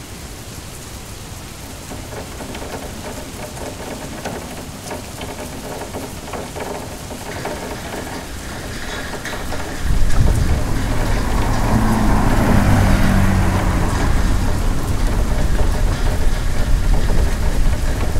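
Steady rain noise that slowly grows louder, joined about ten seconds in by a sudden loud low rumble that carries on to the end.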